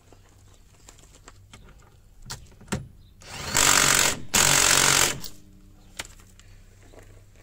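Cordless impact wrench run in two bursts of about a second each, driving the lower bolt of a coilover shock absorber into the rear hub carrier. A few sharp clicks and knocks from handling the tool come before and after.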